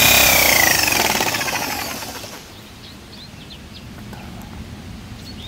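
Corded Ryu electric drill with a 22 mm spade bit running at full speed, then released: its motor whine falls in pitch and dies away over about two seconds as the bit spins down.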